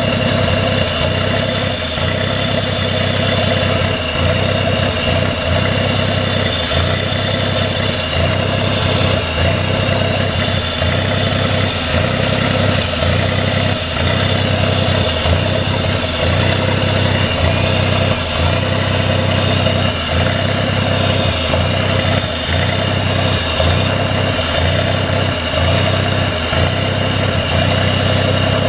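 GM 4.3L Vortec V6 idling, with a short dip in its low note about once a second, an uneven, stumbling idle.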